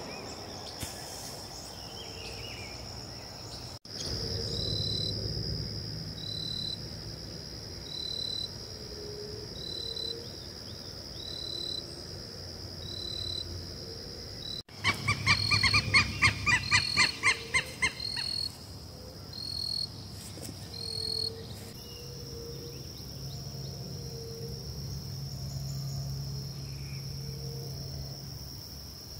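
Steady high-pitched drone of insects, with a short chirp repeating about every second and a half. Midway a louder, rapid trill of calls runs for about three seconds.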